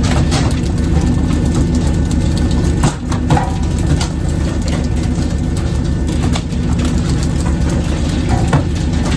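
The fishing boat's engine running in a steady low drone, with scattered knocks and slaps as skipjack tuna are swung aboard on poles and land on the wooden deck.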